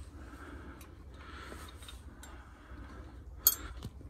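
Steel sawmill parts being handled: low-level knocking and shuffling, with one sharp metal clink about three and a half seconds in.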